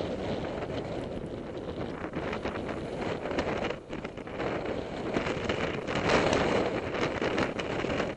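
Wind rushing over the microphone while riding down a snowy slope on a snowboard, with the board scraping and hissing over the snow, loudest about six seconds in.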